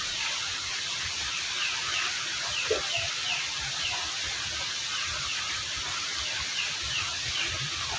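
Steady rain with two runs of short, high falling chirps, about three a second, from a bird, and one brief lower call near the three-second mark.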